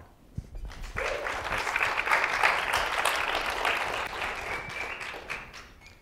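Audience applauding, starting about a second in, building up and then dying away near the end.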